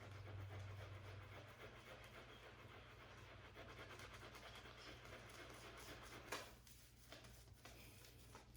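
Faint, steady swishing of a shaving brush working soap lather, over a low hum.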